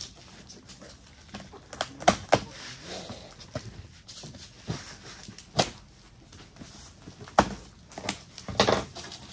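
Cardboard shipping box being opened and searched by hand: flaps handled, tape cut with a knife and packing peanuts rustling, with several sharp knocks and crackles scattered through.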